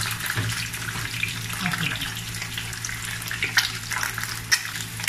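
An egg frying in hot oil and bacon fat in a non-stick pan, sizzling steadily with many small crackles and pops.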